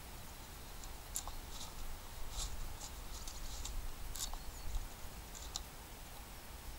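Condor Bushlore bushcraft knife working into a piece of wood: a series of short, sharp, irregular clicks and cracks as the blade cuts and the wood fibres give, about eight in all and bunched in the middle.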